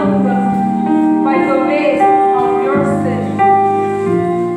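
Worship music: a singing voice over held keyboard chords that change every second or so.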